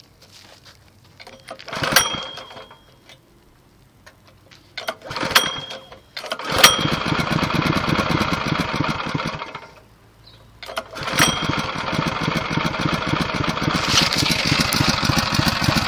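Predator 212cc single-cylinder four-stroke engine being pull-started: two pulls that don't catch, then it starts about six seconds in and idles. It cuts out about ten seconds in and is started again a second later, idling steadily on.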